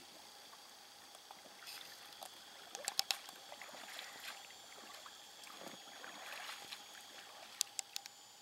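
Faint sound of a small inflatable boat moving off across calm water, with a few sharp clicks about three seconds in and again near the end.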